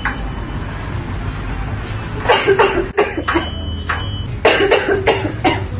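A person coughing in two fits of a few harsh coughs each, the first about two seconds in and the second near the end, over background music: a persistent cough.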